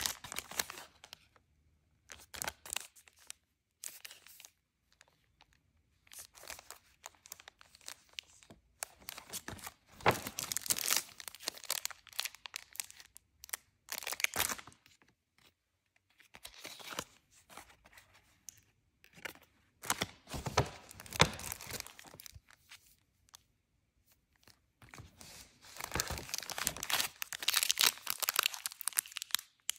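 Clear plastic stationery packaging crinkling and tearing as hands open it, in irregular spells with short quiet gaps between.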